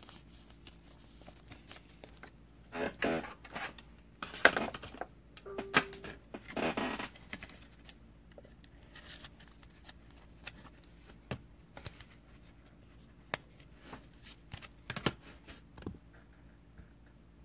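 Trading cards and their plastic holders being handled and slid together: scattered short rustles, scrapes and light taps, busiest in the first seven seconds, then only an occasional click.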